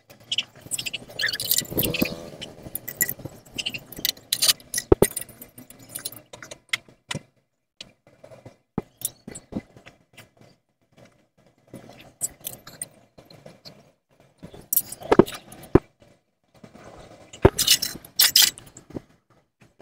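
Gas welding torch at work on a stainless steel exhaust header pipe: the hiss and crackle of the flame, with irregular metallic clinks and taps from the filler rod and pipe in the vise, broken by a couple of brief silent gaps.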